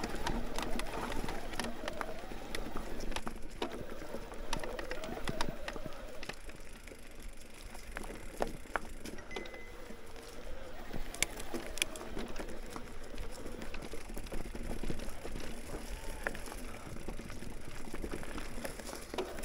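Mountain bike ridden over a rough trail: steady tyre and drivetrain noise with frequent sharp clicks and knocks as the bike jolts over the ground.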